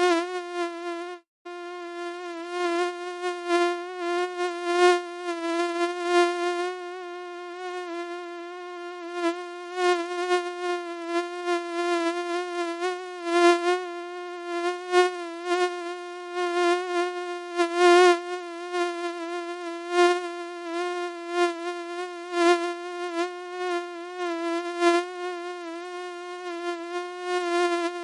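Mosquito buzzing: a steady, thin whine with slightly wavering pitch that swells and fades in loudness. It breaks off briefly about a second and a half in.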